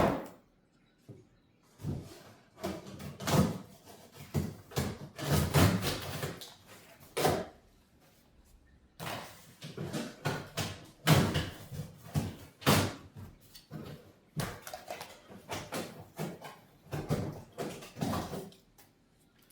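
Cardboard packing being pulled out of a large box and handled: irregular scraping, rustling and hollow knocks. A sharp knock comes right at the start, and there are a few short pauses.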